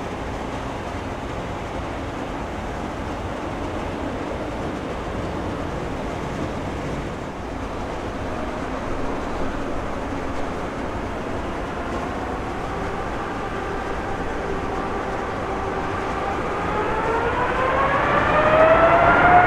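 Jet engines of a Boeing 747-8, four GE GEnx-2B turbofans, running steadily at low power. In the last few seconds they spool up with a rising, multi-toned whine that grows louder as thrust increases.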